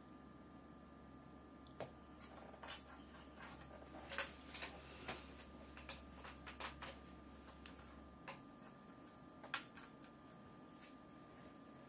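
Small clicks and light scrapes of cracked phone-screen glass and a tool as the broken outer glass is picked and pulled off the LCD. The clicks are scattered, the sharpest about three seconds in and again near ten seconds, over a faint steady high whine.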